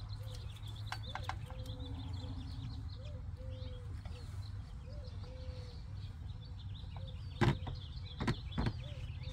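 Birds chirping over a steady low rumble, with short repeated calls and three sharp knocks about three-quarters of the way through.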